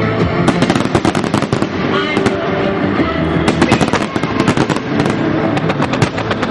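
Aerial fireworks going off in rapid, irregular succession: many sharp bangs and crackles, with music playing underneath.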